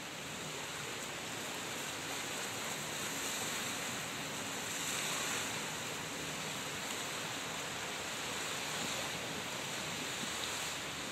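Steady rushing noise of a moving train, swelling slightly about halfway through.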